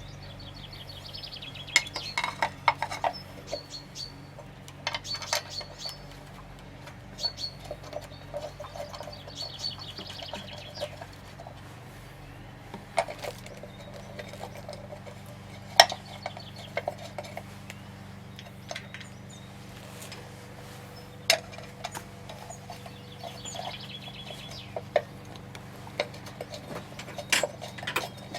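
Scattered metallic clinks, clicks and knocks of hand tools and parts being handled while a motorcycle is dismantled, with a small bird's trilling chirps a few times in the background.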